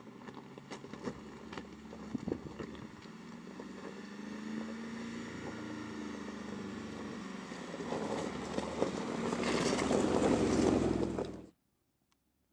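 Mercedes-Benz G-Class crawling down a rocky track: tyres crunching and popping over loose stones with the engine running underneath. The sound grows louder as the vehicle comes close, is loudest shortly before the end, then cuts off abruptly.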